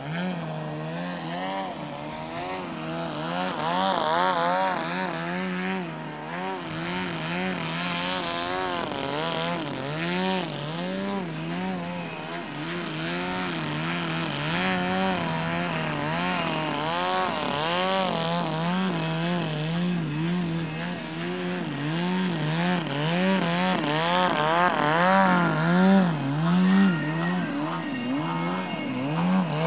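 Engine of a large radio-controlled aerobatic plane during extreme aerobatics, its note rising and falling over and over in quick waves, about once or twice a second, as the throttle is worked. It is loudest a little before the end.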